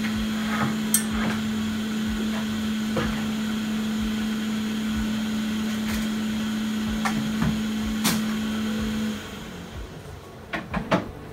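A steady electric hum from a small motor-driven bench appliance, with light clicks and taps of small tools on a circuit board; the hum cuts off about nine seconds in.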